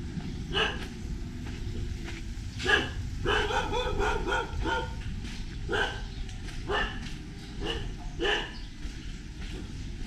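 A dog barking repeatedly, about once a second, with a quicker run of barks and yelps about three to five seconds in, over a steady low rumble.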